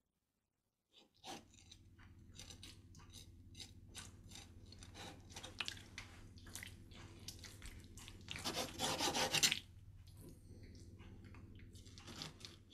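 Kitchen knife cutting through raw, wet organ meat: a run of rasping, rubbing cuts over a low steady hum, starting about a second in, with a denser, louder stretch of cutting for about a second near the two-thirds mark.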